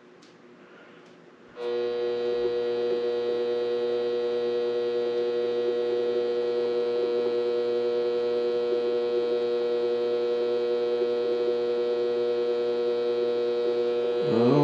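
Mini lathe switched on about one and a half seconds in, its motor and drive then running with a steady whine while the spindle turns slowly, around 110 to 160 rpm. Near the end a short, louder sound wavers up and down in pitch over it.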